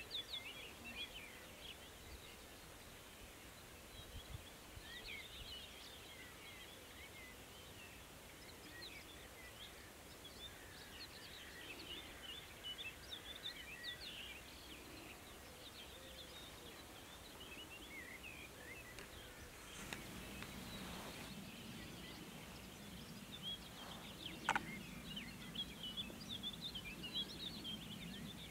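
Faint background birdsong: many small birds chirping and twittering throughout. About two-thirds of the way in, a low steady hum joins, and a single brief sharper sound stands out a few seconds later.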